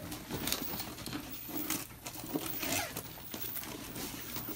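Light rustling, crinkling and small scattered knocks of a cardboard box being handled and pushed about.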